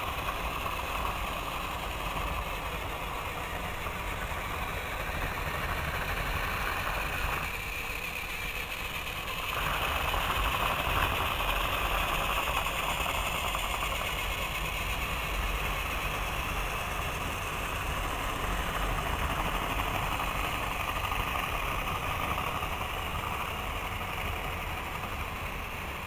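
Battery-powered toy train engines running, their small electric motors making a steady whir. The whir gets louder about ten seconds in as a train passes close by.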